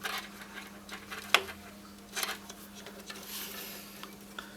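Mounting screws of a CPU liquid cooler being tightened: quiet handling with a sharp click about a second in and a smaller one about two seconds in, over a steady low hum.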